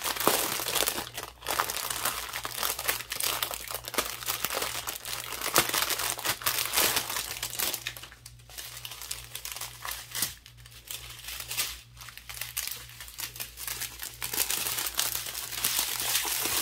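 Plastic packaging crinkling and rustling as a wrapped bundle of small zip bags of diamond-painting drills is opened and the bags handled, with a lighter stretch in the middle.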